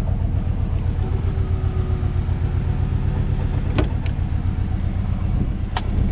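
2006 Subaru WRX flat-four engine idling with a steady low rumble, a car whose engine shakes badly, which the owner takes for worn stock motor mounts. A few light clicks in the second half.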